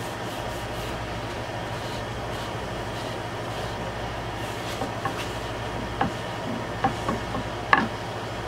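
A steady mechanical hum runs throughout. Over it, light handling noises come from oiling an oak board with a rag: soft rubbing, then a few sharp clicks and knocks in the second half, the loudest near the end.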